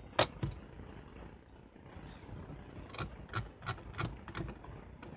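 Olympus Pen EE-3 shutter released with a sharp double click, followed by a faint rising whine typical of the Kako PS-10 flash recharging. About three seconds in comes a run of about five sharp clicks a third of a second apart, the ratchet of the camera's thumbwheel film advance being wound.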